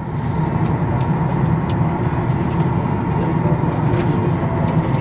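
Steady low rumble of a Boeing 737 MAX 8's engines and airflow heard inside the cabin while the jet taxis. A faint steady whine runs under it, and a few light clicks come through.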